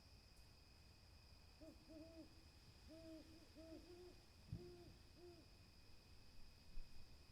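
Owl hooting: a faint series of about seven short, low, rounded hoots in an uneven rhythm, some run close together, starting about two seconds in and ending a couple of seconds before the end.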